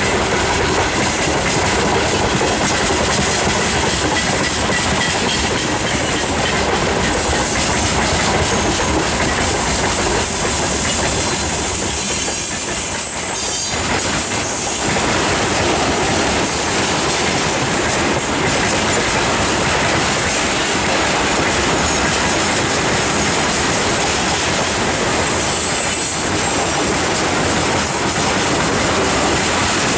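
Freight train wagons rolling steadily past, their wheels clattering over the rail joints, with a thin high wheel squeal that comes and goes.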